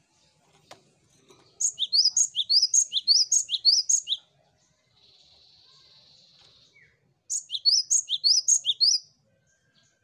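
Gelatik batu (grey great tit, Parus major) singing two bouts of its repeated two-note phrase, each a high note followed by a quick downward-sweeping lower note. The first bout has about six phrases. The second, starting about seven seconds in, has about four.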